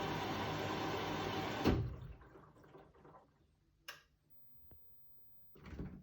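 Beko WTK74011W washing machine running with a steady noise that cuts off with a thump a little under two seconds in, as it starts a bedding wash. A sharp click follows, then a short rustle near the end.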